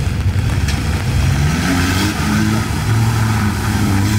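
Off-road 4x4's engine revving: its pitch rises about a second and a half in, then holds steady under load.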